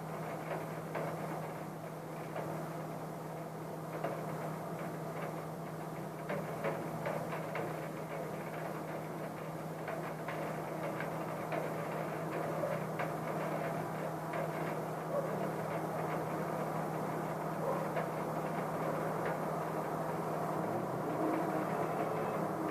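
Steady rain heard through a closed window, muffled, with scattered drops ticking against the glass and a constant low hum underneath.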